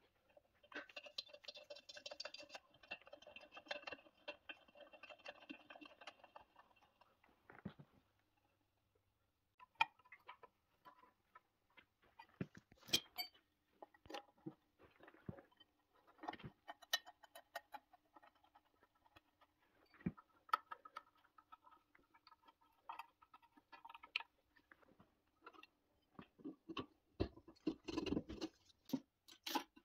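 Quiet scraping on the cast-iron crankcase of a small two-stroke engine for several seconds. Then comes a run of scattered clicks and light metal knocks from hand work on the engine, with a louder cluster of knocks near the end as the finned cylinder is handled.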